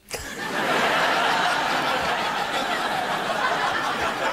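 Studio audience laughing, breaking out all at once right after a punchline and carrying on loudly.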